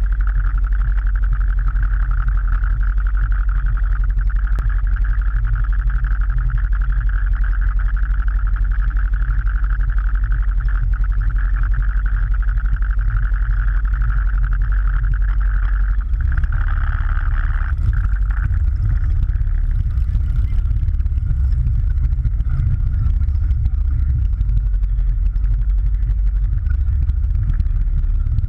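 Motorcycle engine running close to the microphone: a low rumble with a steady high whine over it. About halfway through, the rumble grows heavier and the whine fades as the bike moves off.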